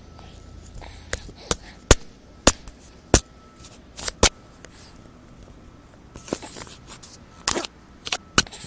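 Baby hiccuping: about a dozen short, sharp hics at irregular intervals, some close together, with a brief breathy rustle in between.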